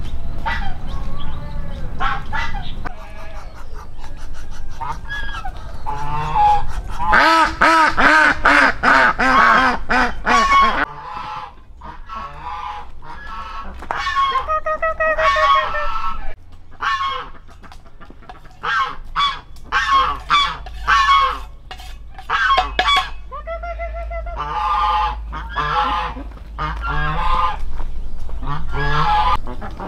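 Farm poultry calling loudly over and over, with a long run of rapid calls about seven seconds in.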